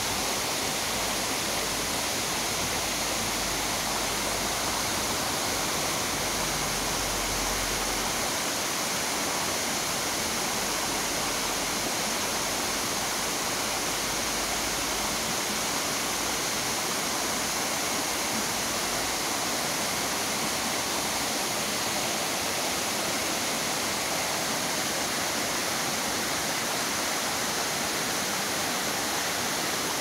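Water rushing steadily down a waterfall and over the boulders of a rocky mountain stream: a constant, even hiss without breaks.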